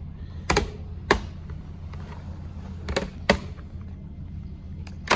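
Sharp plastic snaps as the back cover of a Dell Latitude 3310 laptop is pried up with a plastic pry tool and its retaining clips let go: about five in all, two close together near the start, two about three seconds in, and one at the end.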